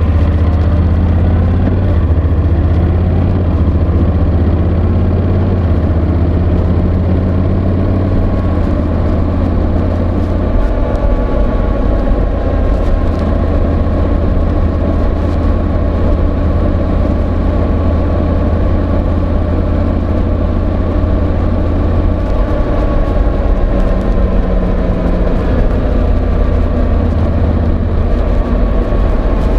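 Honda NC750X motorcycle's 745 cc parallel-twin engine running steadily, its pitch wavering slightly now and then. Scraping of the microphone rubbing inside a slippery fabric jacket pocket is mixed in.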